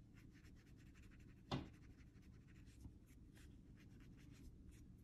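Faint, rapid scratching of colored pencil strokes on paper, with one brief louder noise about a second and a half in.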